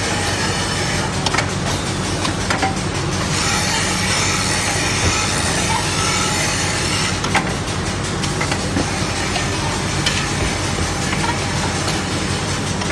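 Automatic melamine crockery grinding machine running, its motors humming steadily while an abrasive sanding drum grinds the edge of a melamine plate. A harsher, higher grinding hiss comes in from about three to seven seconds in, with scattered clicks throughout.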